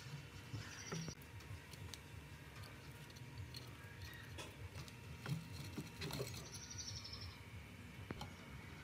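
Faint scratching, rustling and small clicks of fingers handling thin enamelled copper magnet wire on a plastic coil-winding bobbin, twisting and threading the wire ends. A slightly louder scratchy rustle comes about six seconds in.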